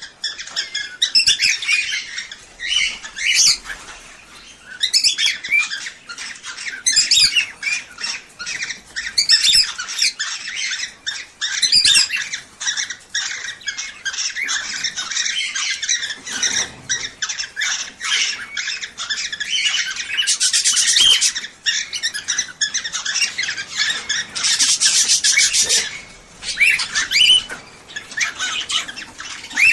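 Many cage birds, cockatiels among them, chirping, whistling and squawking without pause, the calls overlapping. Two harsher, rasping stretches of chatter come about twenty and twenty-five seconds in.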